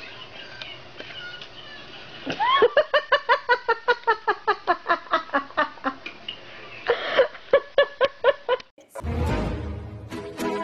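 High-pitched laughter in a quick run of bursts, about five a second for several seconds, then a shorter run of laughs. Near the end, music with a deep bass comes in.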